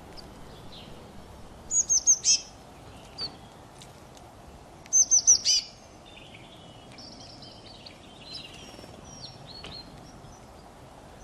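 Birds chirping and singing: two loud phrases of four quick high notes, about two seconds and five seconds in, with fainter chirps and calls around them over a steady background hiss.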